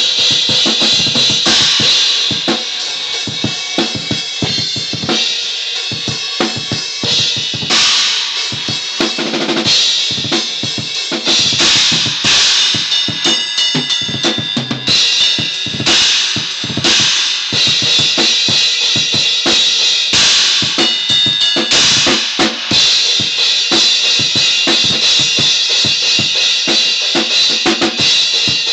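Acoustic drum kit being played continuously: kick drum, snare and cymbals struck in a busy pattern, with the cymbals ringing over the hits.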